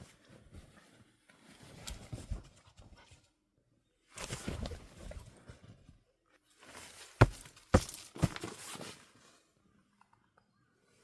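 A dog moving about, rustling in three short spells, with a few sharp knocks about seven to eight seconds in.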